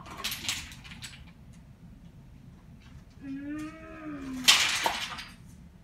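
A young boy's vocal play sounds while he plays with toy monster trucks. There is a short hissing burst near the start, then a drawn-out hummed tone that rises and falls, then a sudden loud hissy crash sound.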